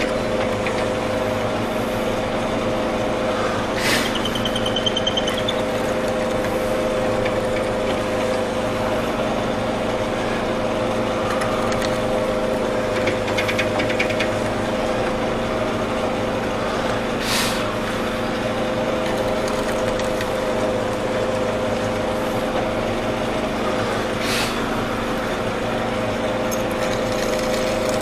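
Mortise machine's electric motor running with a steady hum while it cuts a mortise in wood. Three brief sharp sounds stand out over the hum.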